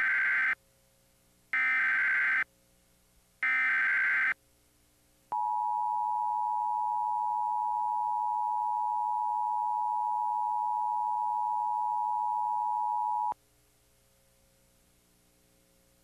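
Emergency Alert System SAME header: three short bursts of digital data tones about two seconds apart, then the two-tone EAS attention signal (853 and 960 Hz together) held steady for about eight seconds, marking the start of an emergency alert message.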